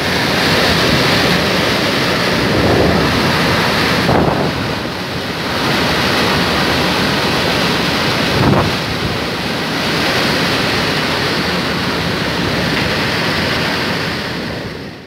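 Cyclone-force wind gusting through trees and palms, with heavy wind buffeting on the microphone. Gusts surge about four seconds in and again past eight seconds, and the sound drops away at the end.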